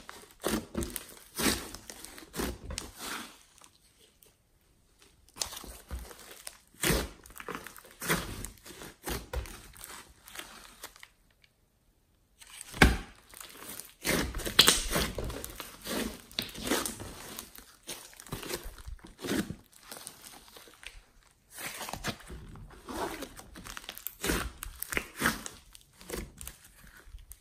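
Thick glossy slime mixed with clay and glitter being kneaded and squeezed by hand, giving sticky crackling and tearing sounds. It comes in bursts, with two short pauses and one sharp pop about halfway through.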